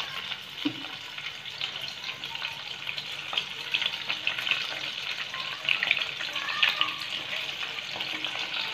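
Fish pieces shallow-frying in hot ghee in a pan: a steady sizzle with frequent small crackles and pops.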